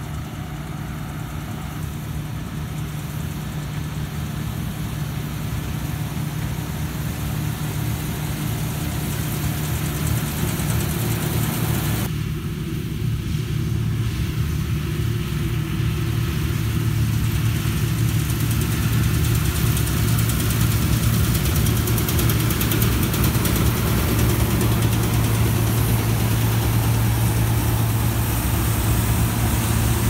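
Claas combine harvester running in a wheat field, its diesel engine and threshing machinery making a steady hum that grows louder as it approaches. About twelve seconds in, the sound changes abruptly to a combine working close by, cutting standing wheat with a strong, steady low drone.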